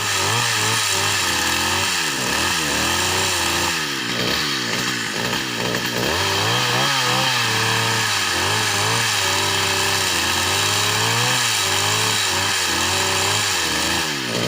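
An engine-driven machine running continuously with a harsh, noisy sound, its engine pitch rising and falling as the load or throttle changes.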